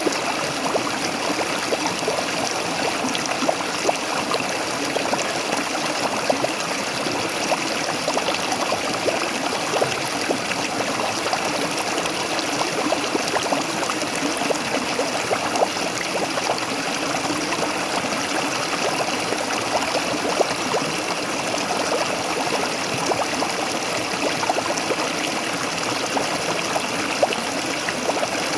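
Waterfall water splashing and trickling steadily, a continuous rush with many small splashes throughout.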